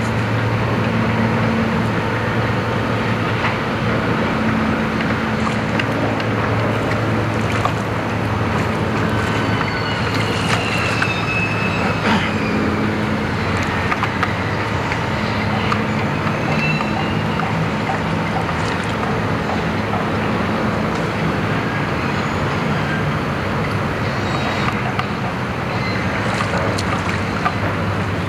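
A steady low engine drone under a constant wash of wind and water noise, with a few faint high chirps about halfway through.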